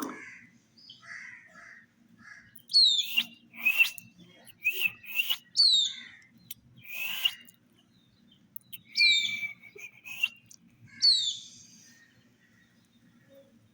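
Baby chicks peeping: short, high calls that each fall sharply in pitch, in irregular bunches with a few quiet gaps.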